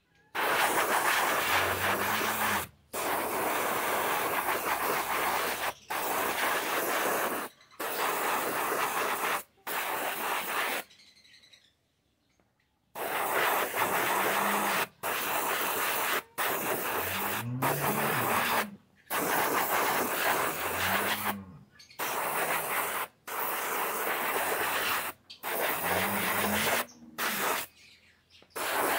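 Spray gun hissing in about a dozen bursts of one to three seconds each, with a pause of about two seconds midway.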